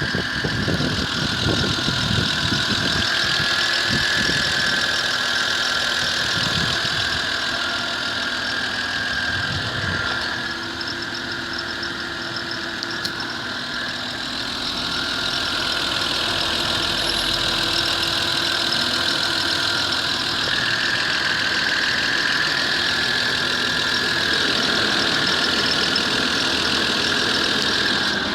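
Car engine idling on a cold start with a steady high-pitched whistle over it; the whistle fades somewhat midway and then comes back.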